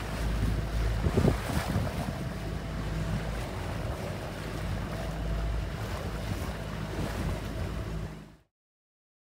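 Wind buffeting the microphone over the wash of choppy lake water from a moving boat, a steady rough rumble that cuts off abruptly about eight seconds in.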